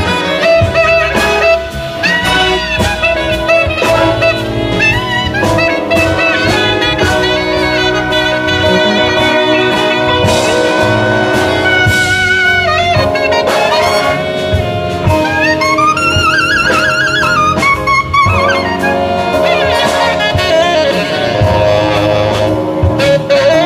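Jazz big band playing, with a tenor saxophone soloing over the horns and rhythm section. About halfway through, a run of high, wavering notes rises and falls.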